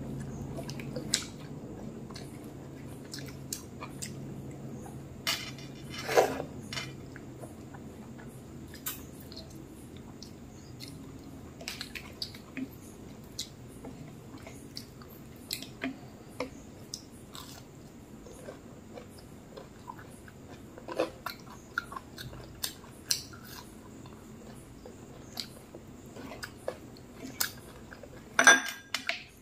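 A person eating rice and lentil dal by hand: fingers mixing and squishing the rice on the plate, and chewing. Scattered sharp clicks and taps run through it, the loudest about six seconds in and a cluster near the end.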